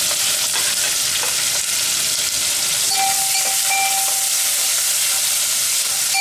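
Sliced onions sizzling loudly as they fry in hot oil in an aluminium pot, stirred with a steel ladle that clicks and scrapes against the pot. A thin steady tone comes and goes from about halfway through.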